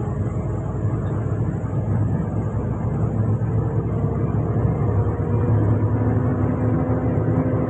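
A vehicle's engine drones steadily, heard from inside the cab while driving, with the hiss of tyres on a water-covered road. A higher engine tone comes in about three and a half seconds in and climbs slightly.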